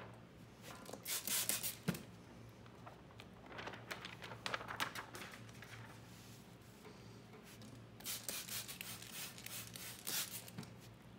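Plastic protection film and its backing sheet crinkling and rustling as the pieces are handled and peeled apart, in three bouts: about a second in, around the middle, and again near the end.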